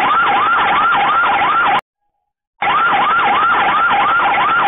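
Built-in alarm siren of a bulb-shaped Wi-Fi CCTV camera, set off from its V380 phone app. A fast whooping tone sweeps up and down about three times a second. It cuts out for under a second a little before the middle, then starts again.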